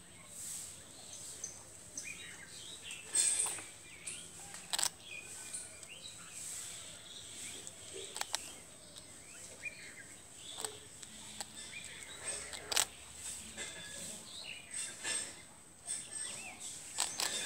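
Small birds chirping and twittering on and off, with about five sharp crunches or clicks a few seconds apart.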